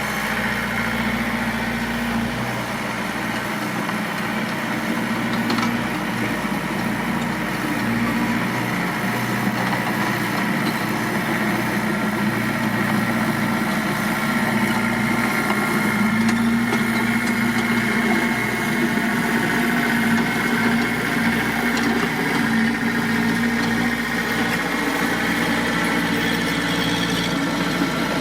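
Mitsubishi D20 bulldozer's diesel engine running steadily, with no change in speed.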